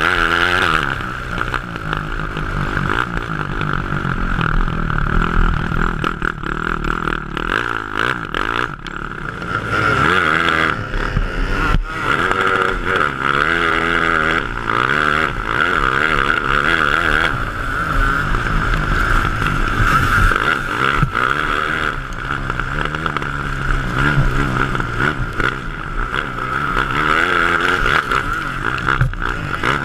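A grass kart's Honda CRF450 single-cylinder four-stroke motocross engine at racing speed, heard from the driver's seat. It revs up and drops back again and again through the laps.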